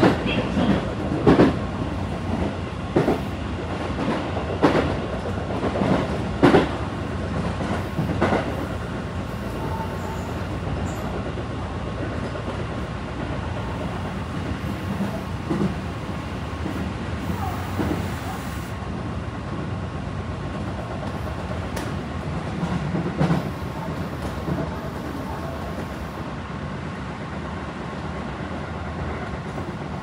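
Tobu 9050 series electric train heard from inside its unmotored control trailer car while running: a steady rumble of wheels on rails. For the first several seconds the wheels clack over rail joints every second or two, then the running settles into an even rumble.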